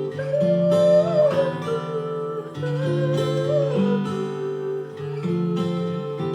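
Instrumental music: acoustic guitar playing held chords, with a wavering melody line over it that sounds twice.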